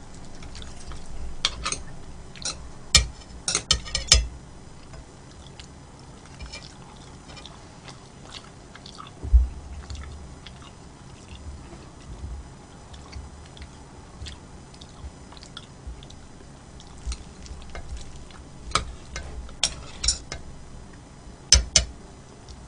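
A person chewing food close to the microphone, with clusters of sharp clicks a couple of seconds in and again near the end, and a single low thump about nine seconds in.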